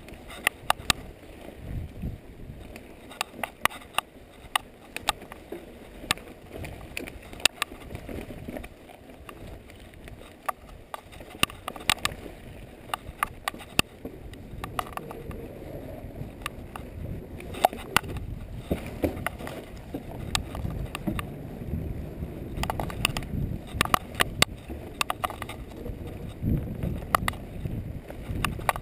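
Mountain bike riding down a rocky trail: the tyres rumble steadily over dirt and rock while the bike rattles and clacks with many sharp knocks from impacts and chain slap, growing louder in the last third.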